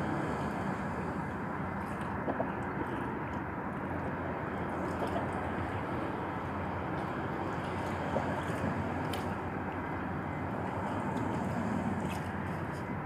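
Steady outdoor wind noise rumbling on the microphone, with a few faint clicks.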